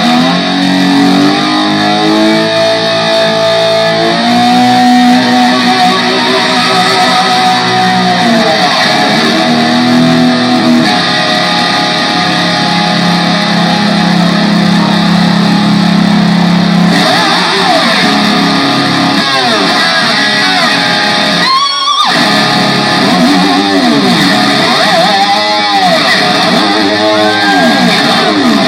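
Live rock band playing loud, led by electric guitar: long held notes, then a run of bent, wavering notes.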